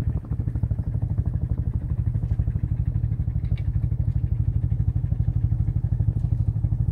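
A small engine running steadily with a fast, even chug, growing a little louder partway through.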